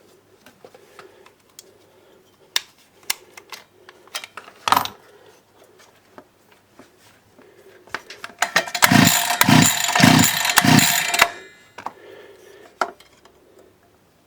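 The 42.7 cc two-stroke engine of a DWT BFS 4342 petrol brush cutter is being pull-started. First come scattered clicks and knocks, then about three seconds of recoil-starter cranking with four heavy strokes. It stops without the engine catching and running.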